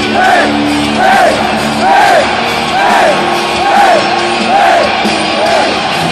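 Live heavy metal band playing in an arena while the crowd shouts together in rhythm, a short massed shout a little more than once a second over the held guitar chords.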